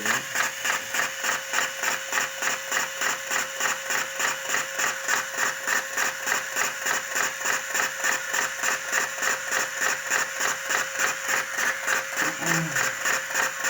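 Motor-driven cigarette tobacco filling machine with a hopper (a Topomatic converted from hand-lever to motor drive) running. Its filling mechanism cycles in an even rhythm of about three strokes a second over a steady motor hum.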